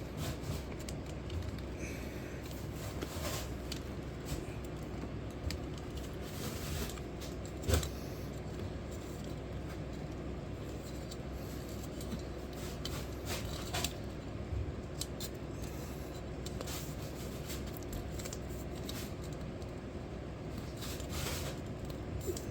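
Windshield trim moulding being worked into a rubber windshield seal: scattered light rubbing, scraping and small clicks, with one sharp knock about eight seconds in, over a steady low hum.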